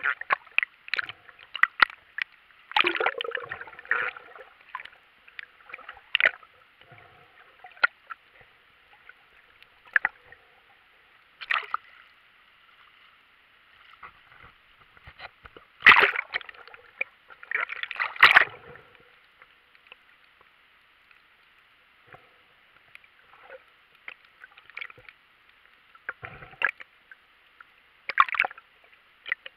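Water moving around a submerged camera: a muffled underwater hiss with irregular sharp clicks and knocks, sloshing and gurgling, and two louder splashes at about 16 and 18 seconds.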